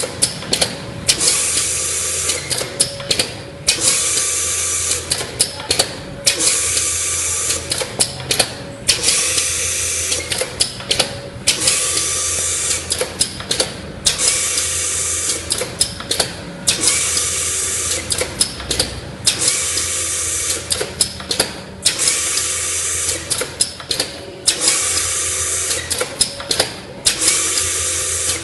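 A four-axis CNC engraving machine running a repeating program: a loud hiss of about a second and a half repeats roughly every two seconds, with quick bursts of clicks in the short gaps between passes, over a faint steady machine hum.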